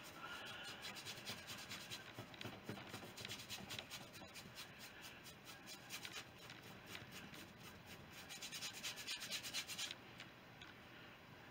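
Paintbrush scrubbing oil paint across a painting board in quick back-and-forth strokes: a faint, rhythmic scratching that comes in spells and dies away near the end.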